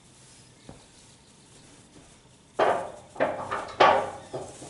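Hard wooden pieces knocking and clattering together as they are handled: a burst of several sharp knocks lasting about two seconds, starting a little past halfway, after a single faint click.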